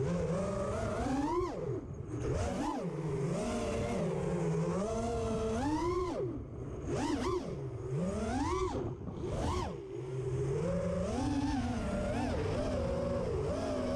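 Brushless motors and propellers of an FPV racing quadcopter whining in flight, the pitch swooping up and down every second or two as the throttle is punched and chopped.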